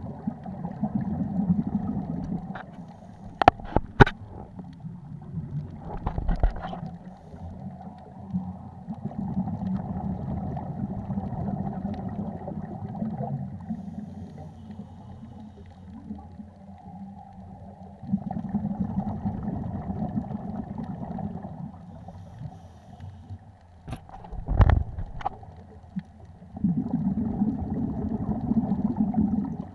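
Scuba diving underwater, heard muffled through a sports camera's waterproof housing: long surges of rumbling regulator exhaust bubbles, one every eight or nine seconds, with quieter breaths in between. A few sharp knocks, twice near the start and twice about three quarters of the way through.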